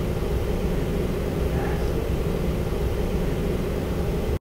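Steady low rumble and hum of the ship's compartment, with a faint steady tone, as picked up on a visitor's handheld audio recorder.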